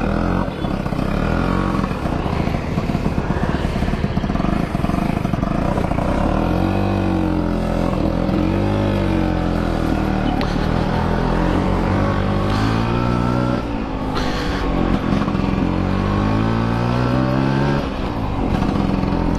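Two-stroke Vespa scooter engine running under way, its pitch rising and falling again and again as it surges. The rider puts the hesitation down to fuel coming through too slowly, probably from a dirty tank.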